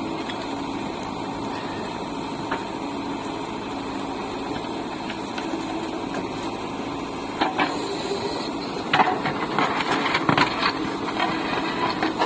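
JCB 3DX backhoe loader's diesel engine running steadily, with a run of sharp knocks and clatter starting about seven seconds in.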